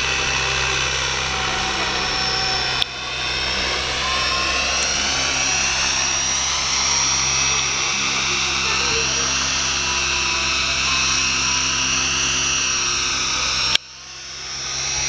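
Align T-REX 550E electric radio-controlled helicopter in flight: the high whine of its brushless motor and drive gears over the steady noise of the spinning rotors, its pitch bending slightly up and down as it manoeuvres. The sound breaks off abruptly twice, about three seconds in and near the end, and comes straight back.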